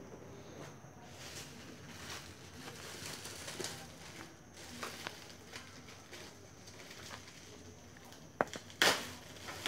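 Plastic packaging rustling and crinkling as it is handled, with a few sharp, louder crinkles near the end as a clear plastic bag is pulled open.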